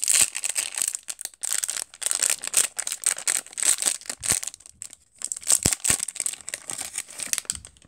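A 2018 Topps Update fat pack's plastic wrapper being torn open and crinkled by hand. The crackling comes in several bursts with short pauses and stops just before the end.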